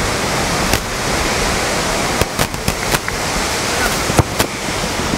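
Wind buffeting the microphone, a steady rushing noise, with several sharp knocks; the one about four seconds in falls as a rugby player's boot strikes the ball for a place kick at goal.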